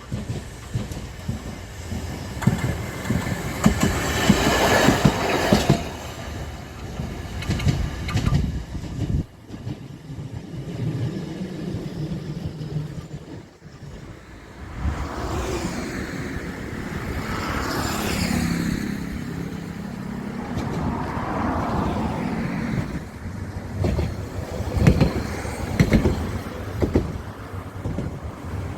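A rail vehicle running past on the track, with wheel knocks over the rail joints. It is loudest about four to five seconds in, and there are more knocks near the end.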